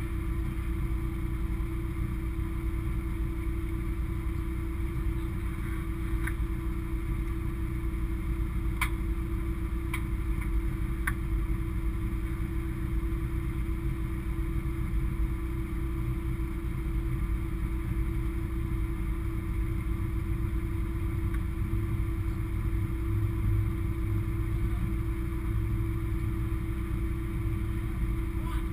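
Race car engine idling steadily, heard from inside the stripped cabin as a low, even hum. A few faint ticks come through near the middle.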